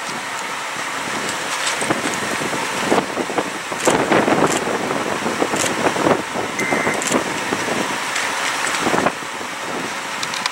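Gusty storm wind rushing over the microphone, louder for a few seconds in the middle, with scattered sharp ticks and pops through it.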